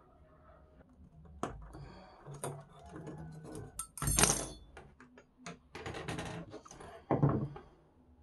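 Needle-nose pliers working a wire coat hanger, untwisting its neck: a run of metallic clicks and scraping, with a sharp clack about four seconds in and another a little after seven seconds.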